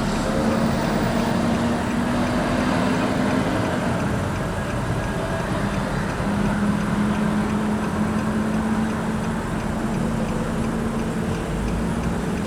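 Road noise of a moving car: a steady rumble of engine and tyres, with a low engine hum that fades for a couple of seconds about four seconds in.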